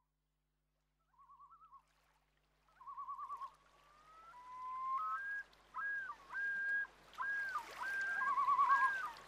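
Whistle-like tones fading in over a rising hiss: short warbling trills, then rising slides, then a run of repeated arched notes.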